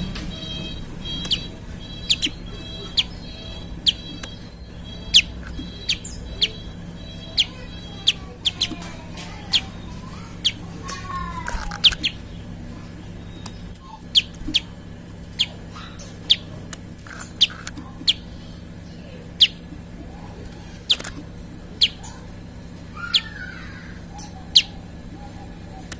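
A prinia (prenjak) calling: a steady series of sharp, very short high chips, about one a second. A few other sliding calls come in around the middle and near the end, over a steady low hum.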